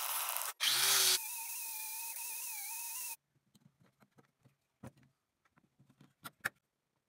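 Electric scroll saw cutting a pine board, running steadily with a whine, then cutting off abruptly about three seconds in. After that come faint knocks of wooden pieces being handled on a bench.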